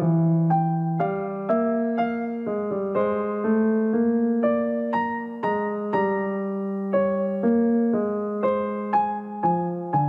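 Gentle background music on piano, a slow melody over held chords with new notes struck about twice a second.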